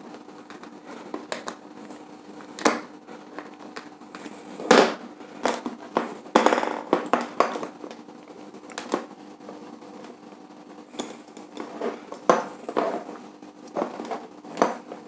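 Screwdriver tightening a wire into a bulb holder's terminal, then the holder and wires being handled: irregular small clicks, taps and scrapes, loudest in the middle, over a faint steady hum.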